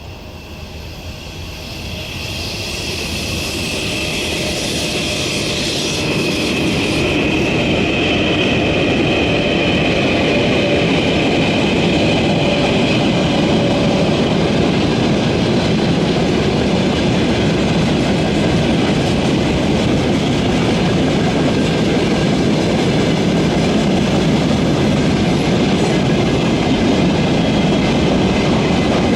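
Freight train hauled by a 3ES5K electric locomotive approaching and running past: the sound grows louder over the first several seconds with a high whine, then the wagons roll by in a steady, dense rumble with wheels clattering on the rails.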